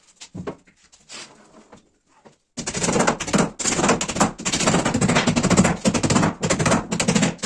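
Two hand hammers driving small nails into the trim strip along the top of a wooden wardrobe frame. After a few light taps, rapid overlapping strikes start about two and a half seconds in.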